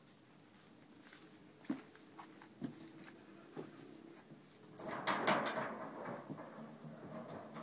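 A few scattered knocks, then a louder stretch of clattering and rattling lasting about two seconds, a little past the middle.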